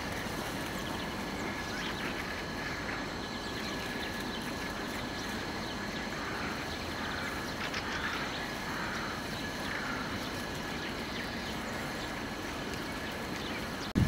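A few faint short calls from a flock of fieldfares feeding in a tree, mostly around the middle, over a steady background noise.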